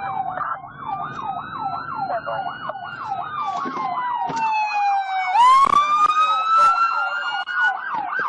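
Two emergency vehicle sirens sounding together. One is on a fast yelp, sweeping up and down about three times a second. The other is on a slow wail that falls, jumps back up sharply a little past five seconds in, and climbs again.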